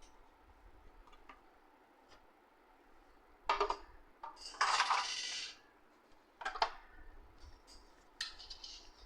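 Hard objects being handled: a sharp clatter about three and a half seconds in, a longer rattling clatter just after, another knock a second later, and lighter clicks near the end.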